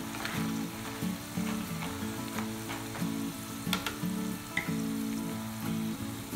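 Plantain slices deep-frying in hot vegetable oil: a continuous crackling sizzle with scattered sharper pops, under background music with a melody.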